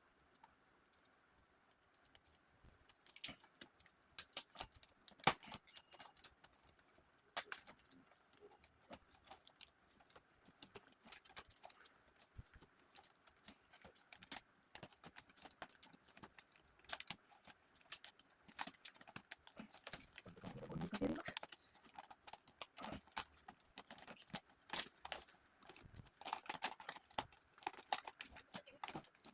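Faint, irregular clicks, taps and knocks of hands handling computer hardware, with a longer scrape or rustle about two-thirds of the way through.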